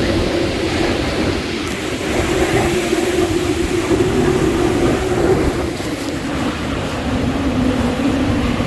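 Hurricane eyewall winds howling: a loud, steady roar with a wavering, moaning tone, and gusts buffeting the microphone with a low rumble.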